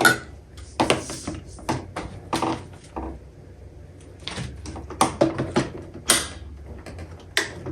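Plastic parts of a vacuum cleaner being handled and fitted together during assembly: a series of irregular clicks and knocks.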